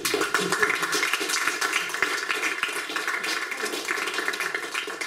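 Audience applauding: dense, irregular clapping that starts suddenly as the talk ends.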